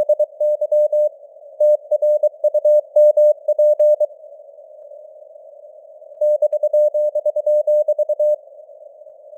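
Morse code (CW) sent at 23 words per minute: a single steady mid-pitched tone keyed into dots and dashes over a narrow hiss of simulated radio noise. The keying pauses for about two seconds in the middle, resumes, and stops shortly before the end, leaving the hiss.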